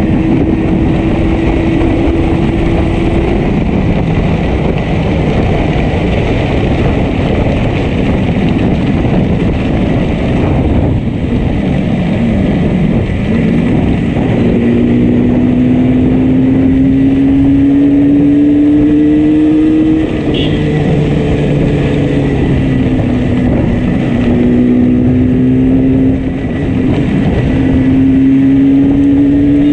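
Yamaha RD350 two-stroke twin engine pulling the motorcycle along under road and wind rush, its pitch climbing slowly and dropping briefly three times in the second half as the gears change. One cylinder is misfiring heavily, leaving the bike down on power.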